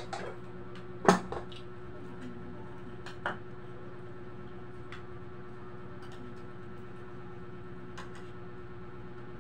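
Clinks and knocks of plates, a cup and a pot during a meal, one sharp knock about a second in and a handful of lighter clicks after, over a steady low hum.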